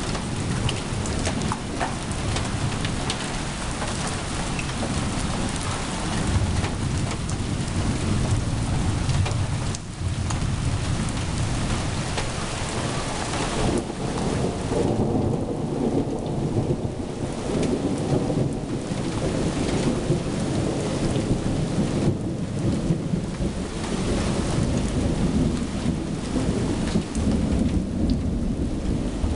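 Steady rain hissing down, with long low rolls of thunder rumbling underneath that grow stronger in the second half.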